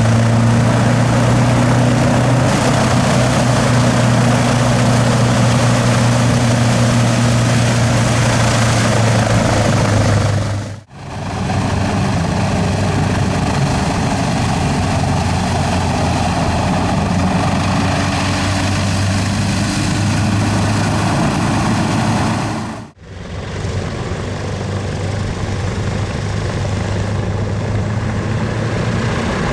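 Single-engine hovercraft running, with its lift fan and twin 8 ft variable-pitch propellers turning. It makes a steady loud drone with a strong low-pitched engine tone. The sound fades out and back in briefly twice, about 11 and 23 seconds in.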